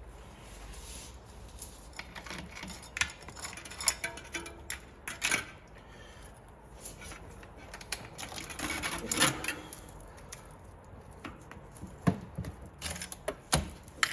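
Worn 12-speed bicycle chain being pulled off the drivetrain once its quick link is split, its metal links clicking and rattling irregularly, with a longer rattle about nine seconds in.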